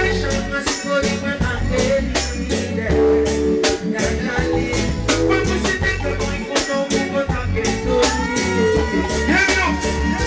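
Live reggae band playing: drum kit keeping a steady, quick beat over a heavy bass line, with keyboard chords held out near the end.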